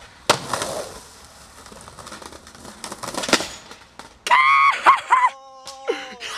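Skateboard landing with a sharp clack about a third of a second in, then its wheels rolling on pavement. About four seconds in comes a loud pitched sound that wavers for about a second, followed by a fainter steady tone.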